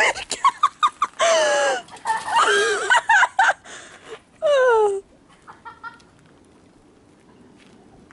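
Chickens clucking and cackling: a quick run of loud, short calls that glide down in pitch, ending with one longer falling call about four and a half seconds in.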